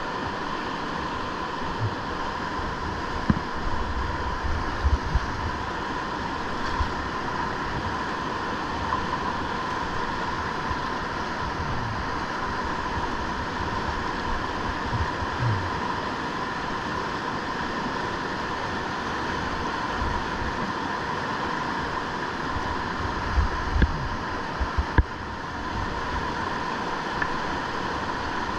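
Steady rush of river whitewater through a rapid, with scattered low thumps and knocks on the microphone.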